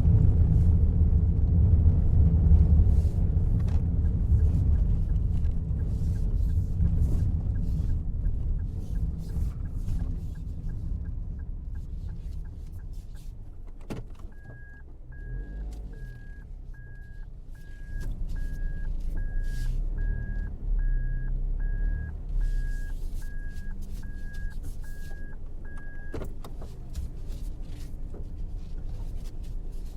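Car driving sounds: engine and road rumble that eases off over the first half, with a faint regular ticking. About halfway there is a click, then a dashboard warning beep repeats steadily, a little more than once a second, for about twelve seconds and stops with another click, while the engine rumble rises again for a while.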